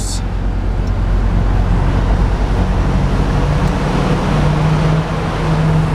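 Semi-truck's engine droning steadily with road and tyre noise while driving on a highway, heard inside the cab.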